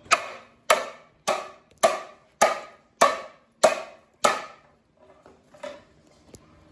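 A hammer striking metal parts of a small-block Chevy 350 engine: eight hard blows in a steady rhythm of nearly two a second, each with a brief metallic ring, then one lighter blow near the end.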